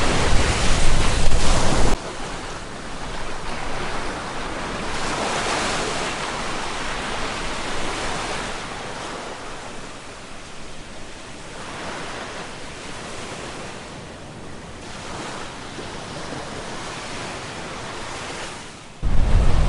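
Wind buffeting the microphone with a heavy low rumble, then after a cut a steady rush of surf and wind that swells and fades several times. The wind buffeting returns suddenly near the end.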